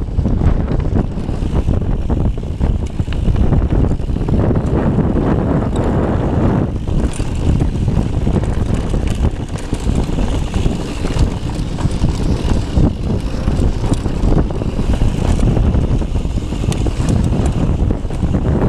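Wind buffeting an action camera's microphone over the rumble and rattle of a mountain bike rolling along a dry dirt singletrack, with frequent small clicks from the bike.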